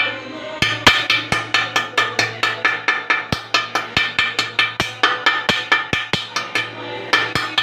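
Rapid, even tapping on a ceramic tile, about four sharp knocks a second, as a hole is chipped out along a marked circle without a holesaw. The tapping starts about half a second in.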